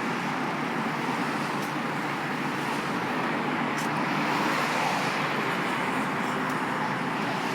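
Steady road traffic noise with no distinct events.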